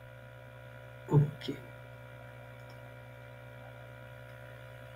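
Steady electrical mains hum, unchanging throughout, with a faint buzz of higher steady tones over it.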